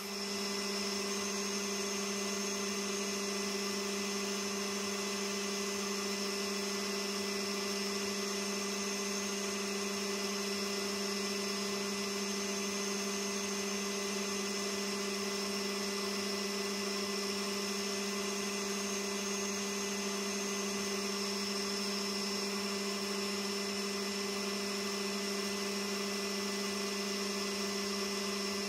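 Hafco AL960B bench metal lathe running steadily at speed, a constant hum with a thin high whine, as an aluminium flywheel spins in the chuck and its face is sanded by hand.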